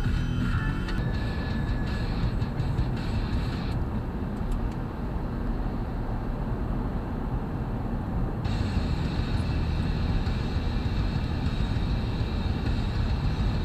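Steady low rumble of road and engine noise inside a moving car, picked up by the dashcam. The higher hiss drops away for a few seconds in the middle.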